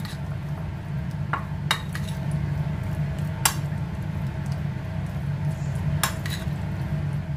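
Metal spoon stirring chicken pieces in egg and cornflour in a bowl, the spoon clinking sharply against the bowl several times, over a steady low hum.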